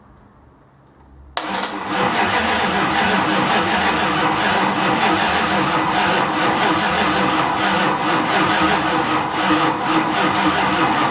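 Starter cranking a Chrysler 360 V8 that turns over steadily but does not fire, beginning suddenly about a second and a half in.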